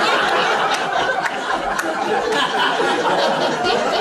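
A small audience laughing together, with mixed voices, in response to a humorous couplet.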